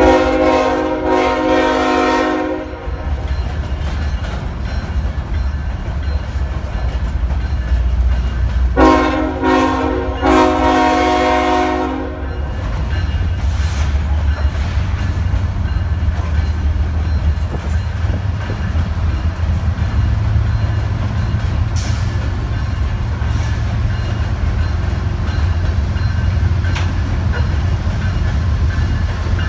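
Locomotive air horn on an approaching CSX coal train: one blast at the start, then two more close together about six seconds later. Under and after them, the steady heavy low rumble of the diesel locomotives and loaded train drawing closer.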